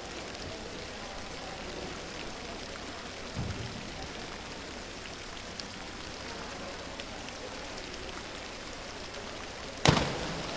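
Steady hiss of pool-hall background noise, then near the end one sharp, loud splash as a diver enters the water from the 10 m platform.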